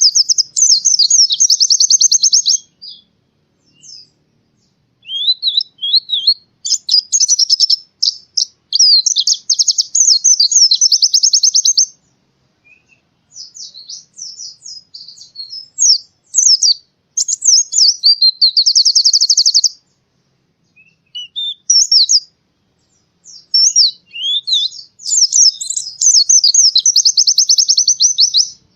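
White-eye (pleci) singing: long phrases of high, rapid twittering and fast trills, broken by short pauses of a second or two.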